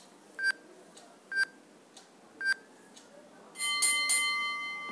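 A countdown timer app beeps three times, about a second apart, over its last seconds. Then, as it reaches zero, it sounds a louder chime of several tones that rings on and fades.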